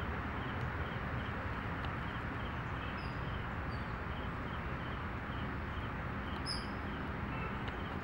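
Outdoor ambience: a steady rushing background with a low rumble, over which a bird repeats a short, faint chirp about three times a second. A few brief higher bird calls come about three seconds in and again about six and a half seconds in.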